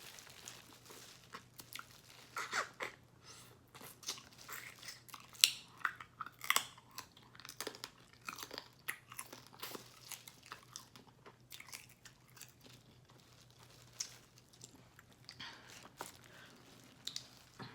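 A person chewing and biting crab close to the microphone: irregular crunches and wet mouth clicks, with a short lull about two-thirds of the way through.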